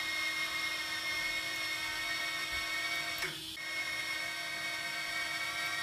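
Brushless motors of a home-built FPV drone spinning without propellers, worked from the radio transmitter: a steady high whine that dips briefly about three seconds in and then picks up again.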